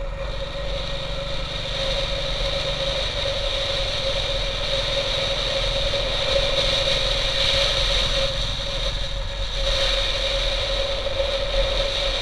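Motorcycle engine running steadily at road speed, heard from the rider's position, with a steady high tone and rushing wind noise over it. It gets a little louder about two seconds in.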